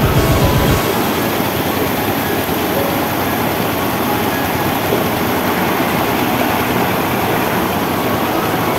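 Semeru lahar floodwater, a fast muddy torrent of volcanic sand and stones, rushing steadily over a rocky river bed; the flow is in spate and rising. A few low thumps come in the first second.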